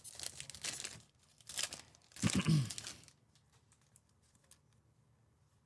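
Foil trading-card pack wrapper being torn open by hand, crinkling in three short bursts over the first three seconds, the last the loudest. After that come only faint light ticks of the cards being handled.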